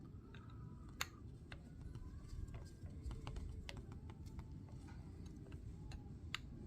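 Scattered small clicks and taps of carburetor parts and hand tools being handled while a small-engine diaphragm carburetor is put back together, over a low rumble. The sharpest clicks come about a second in and again near the end.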